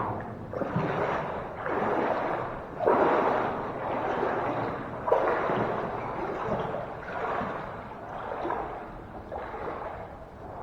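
Someone wading through standing floodwater in waders, the water sloshing and swishing with each stride, about one stride a second.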